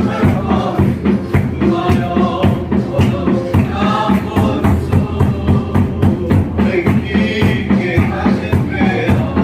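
A group singing a gospel song together over a steady drum beat.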